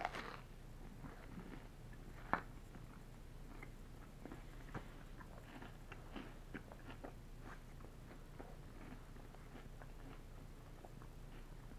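A person biting into a dry, hard-crusted French bread pizza, then chewing it with faint crunching and small crackly clicks, and one sharper click about two seconds in. A steady low hum runs underneath.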